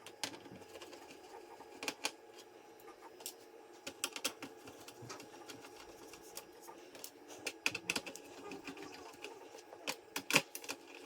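Screws being backed out of the motherboard of an all-in-one PC: a steady small-motor whir, as from a powered screwdriver, with scattered clicks and light taps of metal screws and tools, the sharpest near the end.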